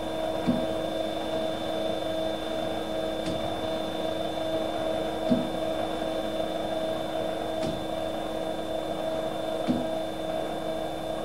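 Steady machine hum holding several fixed tones, with a soft tick about every two seconds.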